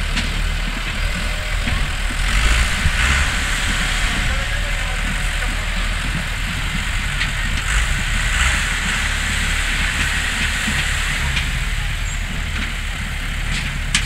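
Tractor engines running steadily: a low drone under an even hiss of machinery, which swells briefly a couple of times.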